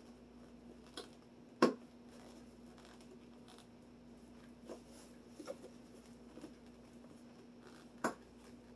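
Scattered clicks and knocks of tools and metal parts being handled while a bicycle rack is taken apart. The loudest knock comes about one and a half seconds in and another near the end, with a steady low hum underneath.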